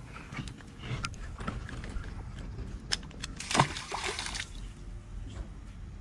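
An eel, released from a metal lip-gripper, drops into the river with one splash about three and a half seconds in. A few light clicks come just before it.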